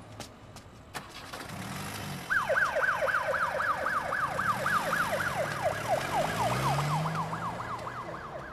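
Ambulance siren in a fast yelp. It starts about two seconds in, and each cycle is a quick falling sweep, about four a second.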